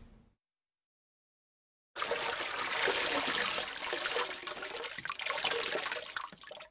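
Water spraying from a garden hose nozzle and splashing onto wet concrete, starting about two seconds in and running unevenly until it cuts off just before the end.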